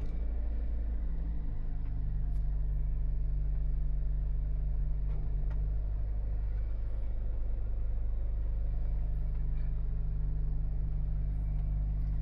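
Car engine idling steadily, with a few faint ticks.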